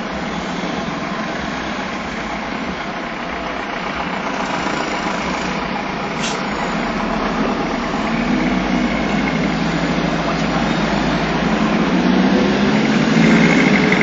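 Road traffic heard from inside a vehicle in slow, dense traffic: engines running and tyre noise, growing a little louder in the last few seconds.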